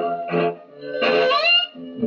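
Film soundtrack music from a small band of violin, clarinet and cello, playing from a television: held notes, then a rising slide about a second in.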